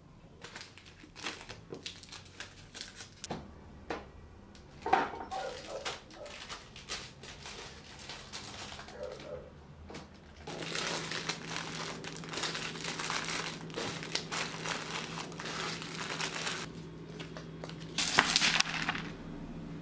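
Plastic bags crinkling and rustling, with small clicks and rattles as nuts are handled, scooped and weighed. About halfway through the rustling grows denser over a steady low hum, and a louder burst of rustling comes near the end.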